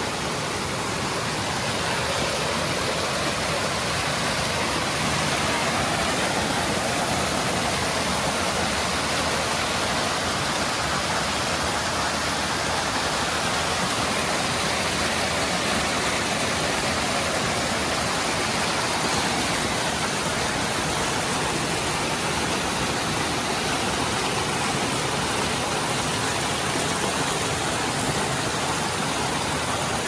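Small cascades of a rocky creek pouring over and between boulders: a steady rushing and splashing of water.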